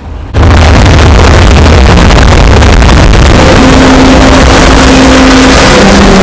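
Deliberately over-amplified, heavily clipped noise blast with a deep rumble, starting abruptly a moment in and running at full loudness, with a faint steady hum partway through.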